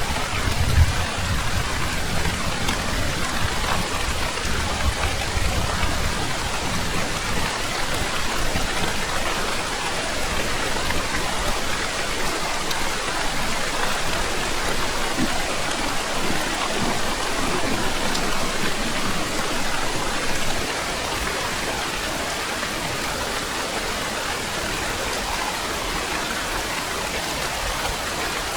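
Steady heavy rainfall. A low rumble of thunder runs through the first few seconds and dies away, and the rain eases slightly about twenty seconds in.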